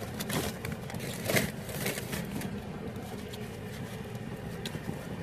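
Quiet eating sounds: light rustling, clicks and crunching as chicken tenders and their packaging are handled and eaten, over a steady low hum inside a car.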